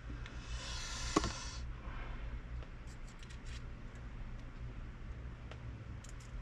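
Small parts of a spinning reel being handled and fitted by hand on a workbench: a short rustling hiss, one sharp click about a second in, then scattered light clicks, over a steady low hum.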